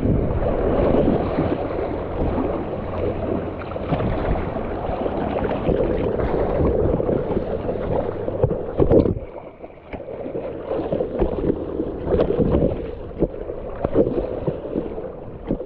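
Water rushing and splashing over a kayak-mounted camera, with wind rumble on the microphone. A little past the middle the rush drops away, leaving a kayak paddle dipping into the water in separate splashes about once a second.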